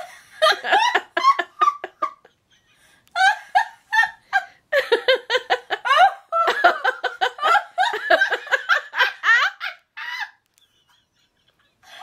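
A woman laughing hard in quick, repeated bursts of breathless cackling. The laughter stops twice for a silent gasp, once about two seconds in and again near the end.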